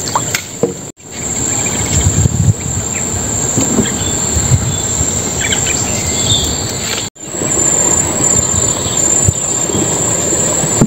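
Insects droning in one steady high-pitched buzz over a louder low rumbling noise. The sound drops out abruptly for a moment twice, about a second in and about seven seconds in.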